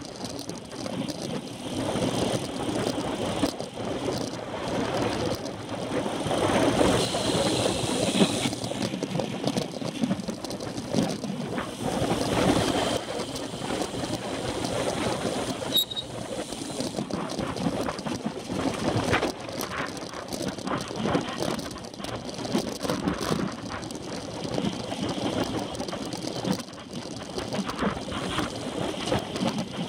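Wind rushing over a handlebar-mounted camera's microphone on a road bike at racing speed, mixed with the bike's rumble over the road surface. The noise rises and falls unevenly throughout.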